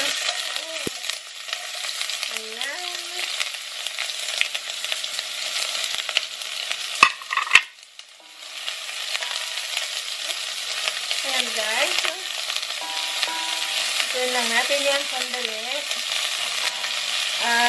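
Chopped onions sizzling in hot oil in a nonstick pot while a spatula stirs them, the start of a sauté. About seven seconds in there are a couple of sharp clicks, and the sizzle drops out for about a second before carrying on.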